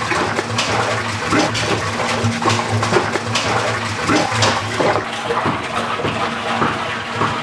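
Water pouring from a large plastic drinking-water can into a big metal cooking pot (handi), splashing steadily onto the pot's bottom as it fills.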